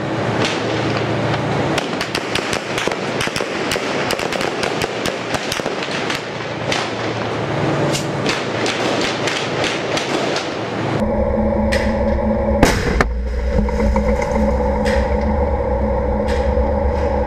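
Rapid, irregular crackle of gunfire over a dense background roar. About eleven seconds in it switches abruptly to the steady, deep drone of a tank's engine heard from a camera mounted on the tank, with a sharp crack soon after and scattered knocks.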